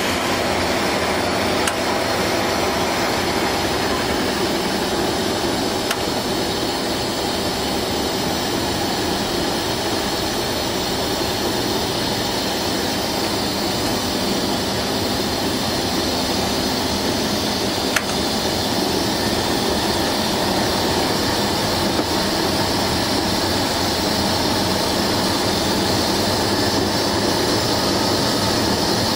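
Diesel locomotive under power, heard from inside its cab: a steady engine drone mixed with running noise as it moves along the line, with a few faint clicks.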